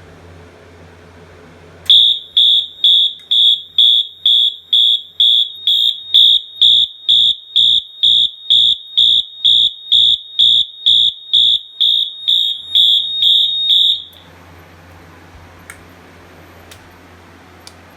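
Wheelock MT electronic fire alarm horn sounding the march-time code, a shrill high tone pulsing about twice a second, the sign of the alarm system in alarm. It sounds for about twelve seconds, then cuts off abruptly.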